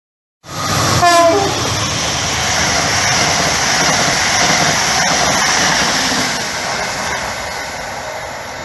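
Chiltern Class 68 diesel locomotive and its coaches running through a station at speed: a short horn blast about a second in, then the steady noise of engine and wheels on rail as the train passes, easing off near the end as it draws away.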